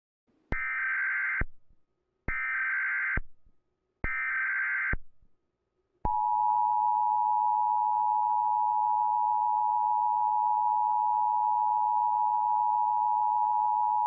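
Emergency Alert System tones: three short buzzy SAME header data bursts, then the steady two-tone EAS attention signal held for about eight seconds, the signal that an emergency broadcast message follows.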